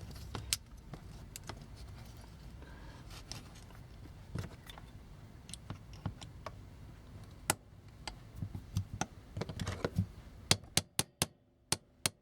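Small hand tools clicking and tapping against the parts of a vintage toy robot being taken apart: scattered sharp clicks over a low handling rumble, then near the end a quick run of evenly spaced light taps, about three or four a second.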